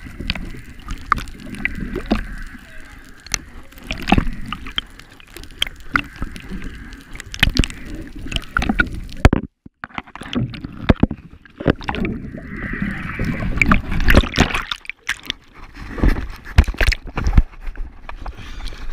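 Water sloshing and gurgling around a camera held at the waterline beside a boat hull, moving in and out of the water, with many sharp clicks and knocks and a brief drop-out about halfway.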